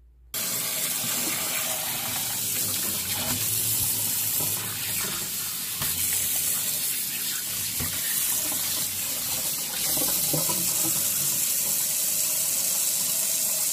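Kitchen tap running in a stainless steel sink, a steady hiss of water splashing over raw mackerel on a plate as a hand rubs them clean. It starts just after the beginning and cuts off suddenly at the end.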